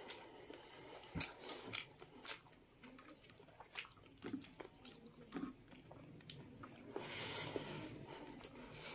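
Faint eating sounds from people eating with their hands: chewing, lip smacks and scattered soft clicks as they bite into boiled egg and meat, with a short hiss about seven seconds in.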